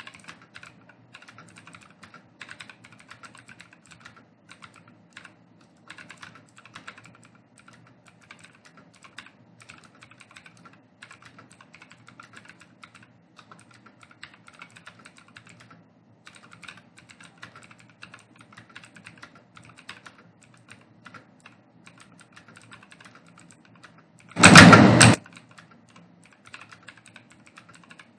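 Fast, continuous typing on a computer keyboard: a dense, irregular run of key clicks. About three-quarters through, a short, very loud burst of noise lasting under a second drowns the typing out.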